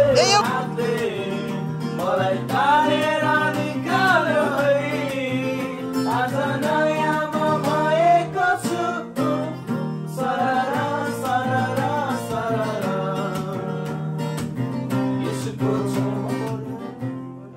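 Men singing a song together to a strummed acoustic guitar. The music fades out near the end.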